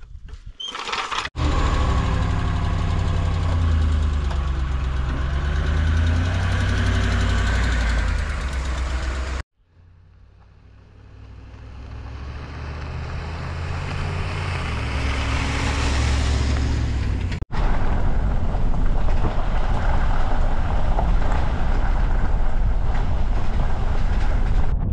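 Pickup truck engine running as the truck drives on a gravel road, in three abrupt cuts. In the middle stretch it approaches from a distance and grows steadily louder over several seconds. In the last stretch the engine and tyre rumble are heard from inside the cab.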